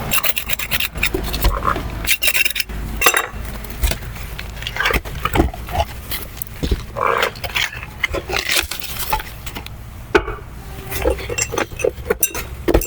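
Factory machinery at a precast concrete floor-tile plant clattering and knocking irregularly, with short squeals in between.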